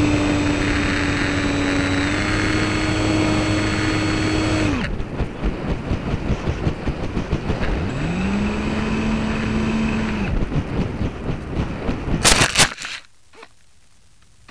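Onboard view of a small electric RC plane: the motor and propeller run with a steady whine and then cut off. Air rushes past the airframe, then the motor spools up in a short burst and stops again. Near the end a quick cluster of sharp knocks as the plane hits the ground, then only a faint hiss.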